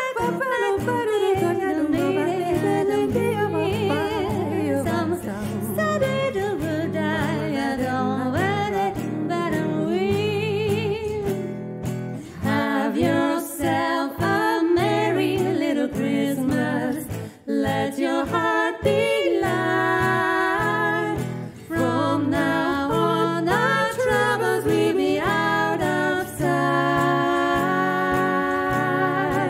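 Two women singing without words in swing style, over a plucked acoustic guitar accompaniment, with the voices moving in two-part harmony in the second half.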